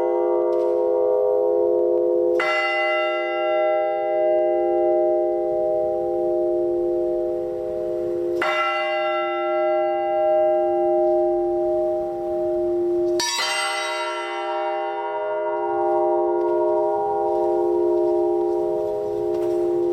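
Russian Orthodox church bells struck by the bell ringer in slow, widely spaced strokes, three in all about five seconds apart. Each stroke sets the bells ringing anew, and their deep hum and overtones carry on between strokes as they slowly die away.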